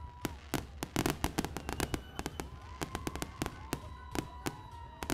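Fireworks display: a rapid, uneven string of sharp cracks and pops from bursting shells and crackling stars, densest about a second in.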